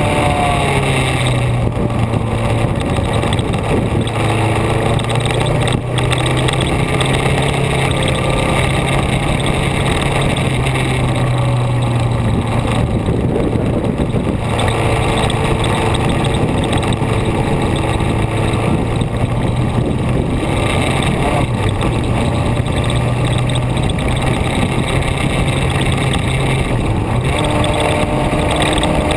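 A vehicle driving along at a steady pace: a loud, even mix of engine hum and wind and road noise, with no big changes in speed.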